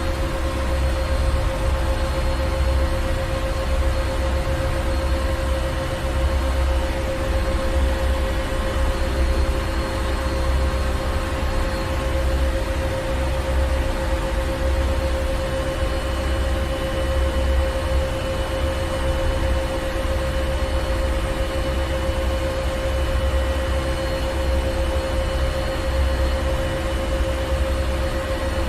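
Ship's engine room: heavy machinery running steadily, a deep throbbing rumble under a constant hum and a hiss of air.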